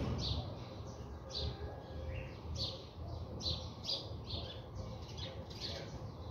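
Small birds chirping repeatedly, short high chirps about twice a second, over a low steady rumble.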